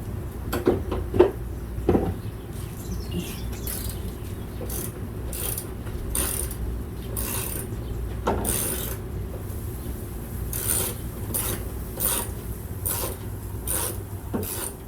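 Ratchet wrench worked in steady strokes, about one every two-thirds of a second, loosening a bolt, after a few sharp metal clicks at the start.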